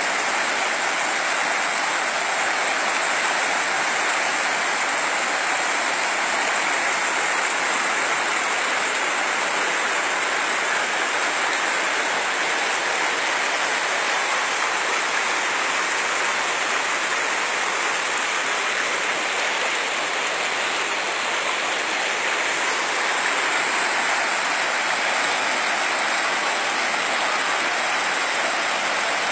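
Fast-flowing floodwater running along a village road: a steady, unbroken rushing of water.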